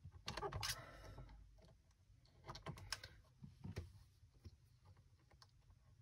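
Faint clicks and rustling of hookup wires being handled and pushed into the terminals of an electronics experiment kit: a quick cluster in the first second, then a few isolated clicks.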